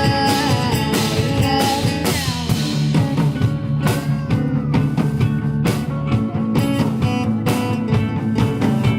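Rock band playing an instrumental passage, with guitars over bass and a steady drum beat.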